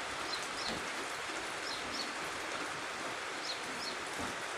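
Light rain falling steadily, with a bird giving short high chirps in quick pairs several times.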